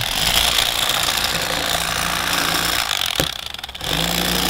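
Electric fillet knife running with a steady buzz as it cuts a crappie fillet. It drops off briefly just after three seconds in, with a click, and then runs again.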